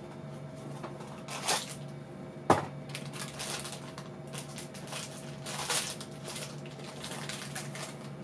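Foil blind-bag wrapper crinkling and rustling in the hands as it is torn open and a small figure is pulled out, with a sharp click about two and a half seconds in.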